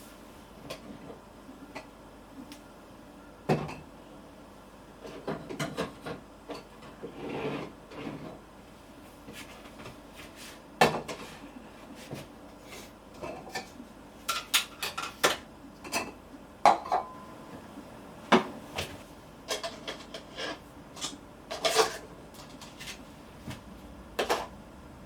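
Kitchen clatter: dishes and cutlery knocking and clinking as they are handled, in irregular separate strikes that come thicker in the second half, one of them ringing briefly.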